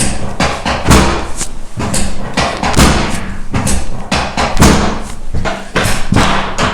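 A rapid series of thumps, about three a second, from a chiropractic adjustment being worked on the patient's tight left sacrum as she lies face down on the adjusting table.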